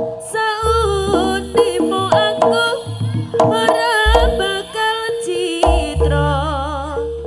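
Live jaranan accompaniment music: hand-drum (kendang) strokes under a high melody with a strong wavering vibrato, with deep low strokes a few times in the second half.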